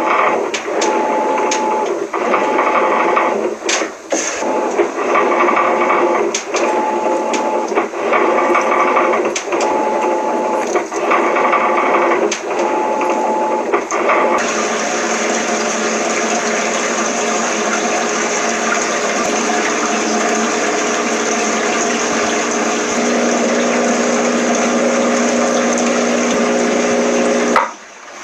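Washing machine agitating, its motor whine starting and stopping about every two seconds as the drum swings back and forth, with water sloshing and clicks. About halfway it switches abruptly to a steady whirring run with a constant hum, which cuts off near the end.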